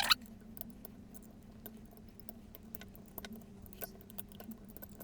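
Scattered light metallic clicks and rattles from the small parts of a car starter motor being handled and pressed back together.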